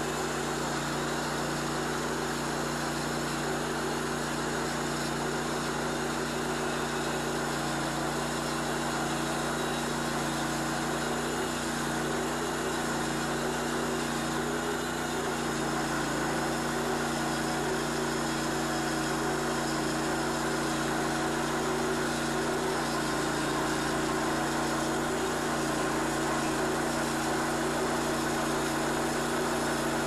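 Vallee Sawmills Green Monster Wide bandsaw mill running steadily under load, its engine-driven band blade cutting lengthwise through a wide maple log.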